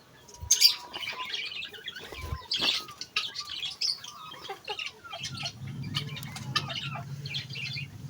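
Chickens squawking and chirping in quick, overlapping calls, with a few sharp knocks, and a low steady hum joining in about five seconds in.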